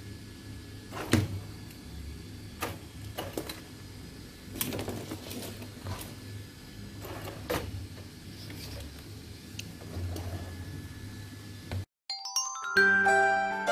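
Handling noise from a pistol-grip RC radio transmitter and LiPo battery connectors: a few sharp clicks and knocks over a steady low hum. Near the end a bright chiming music jingle starts.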